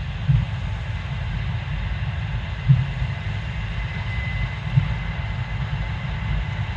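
Case IH 7230 Axial-Flow combine running steadily: a deep, even rumble with a faint high whine over it and a few heavier low thuds about two seconds apart.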